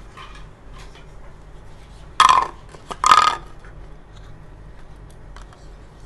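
Plastic toy doctor-kit pieces being handled and set down on a table: two short, loud bursts of scraping and crackling plastic about a second apart, with a few faint clicks around them.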